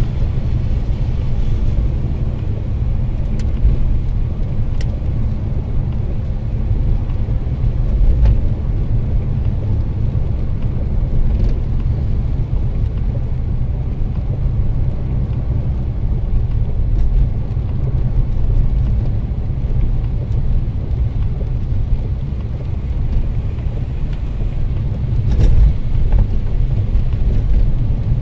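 Steady low rumble of a car driving on a wet road, engine and tyre noise heard from inside the cabin, with a short louder bump near the end.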